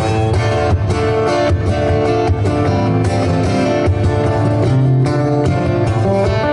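Solo acoustic guitar played fingerstyle: a quick run of plucked melody notes over sustained bass notes.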